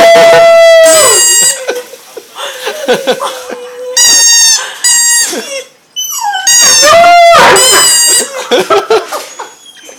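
Dog howling along in long drawn-out notes, in three loud stretches with quieter wavering howls between them.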